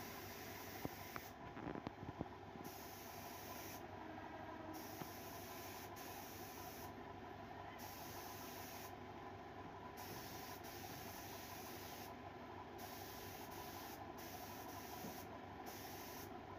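Faint steady background hiss of room noise, with a few light clicks about one to two seconds in.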